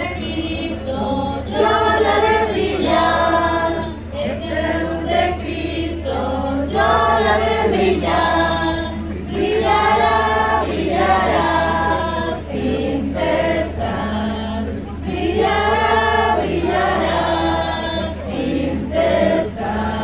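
A congregation singing a hymn together in sung phrases with short pauses between them, over a steady low hum.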